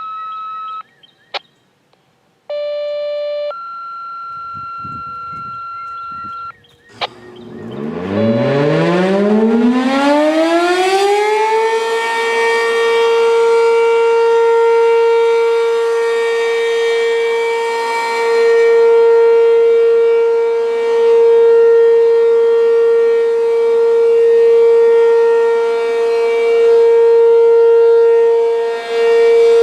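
A short sequence of steady electronic activation tones, then an ACA P-15 (Penetrator 15) eight-port rotating civil defense siren winds up. Its pitch rises over about five seconds and then holds one steady tone, the loudness swelling and fading every few seconds as the siren rotates.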